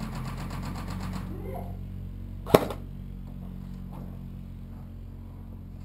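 A single sharp crack of an airsoft gun firing, about two and a half seconds in, over a low steady hum.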